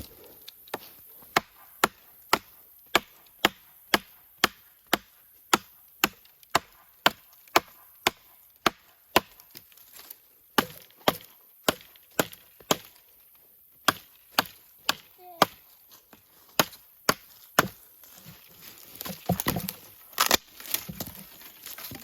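Gerber StrongArm fixed-blade knife chopping into wood: sharp, steady strikes about two a second with a few short pauses, then a rougher burst of cracking and splintering near the end.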